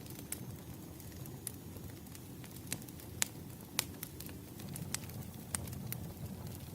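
Wood fire crackling: sharp, irregular pops over a low, steady rumble of burning logs.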